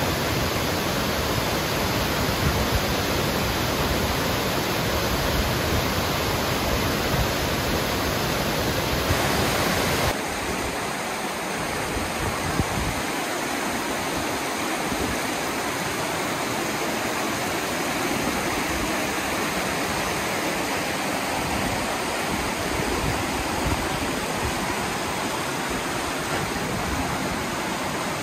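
A large waterfall cascading into a pool, a steady loud rush of water. About ten seconds in it gives way to the lighter rush of the creek's rapids alongside the trail.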